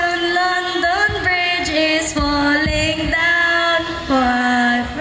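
A song with a female singing voice holding long, slightly wavering notes that step from pitch to pitch.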